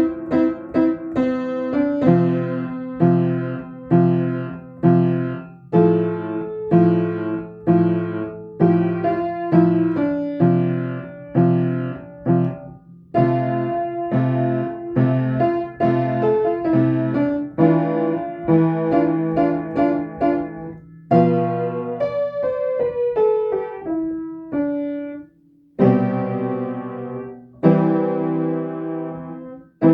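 Piano playing a calm piece in struck chords, about one a second, each ringing on; the playing briefly stops twice near the end.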